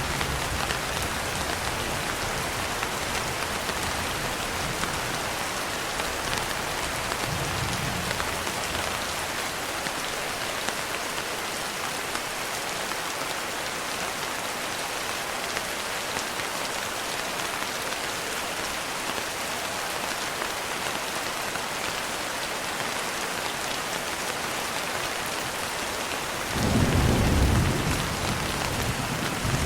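Steady rain falling, with low rolls of distant thunder: a faint one near the start, another a few seconds later, and the loudest close to the end.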